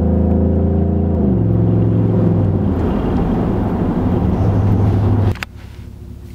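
Ford F-150's 5.0 V8 with MBRP side-exit exhaust, heard from inside the cab pulling under acceleration. Its pitch drops at an upshift about a second in. About five seconds in the exhaust sound cuts off abruptly, leaving a quieter cabin hum.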